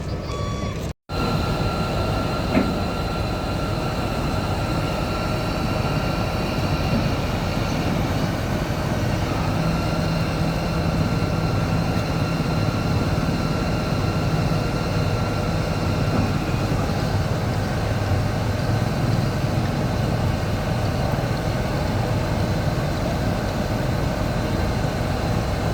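Heavy diesel construction machinery running steadily, a low engine hum with a few steady high whining tones over it. One sharp knock about two and a half seconds in.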